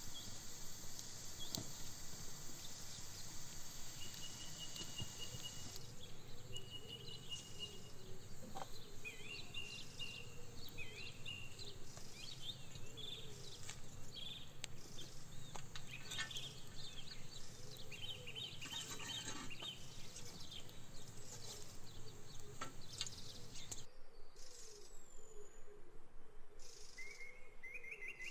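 Small birds chirping and singing in short whistled notes over a steady outdoor background noise. The background noise drops away suddenly a few seconds before the end, leaving the birdsong.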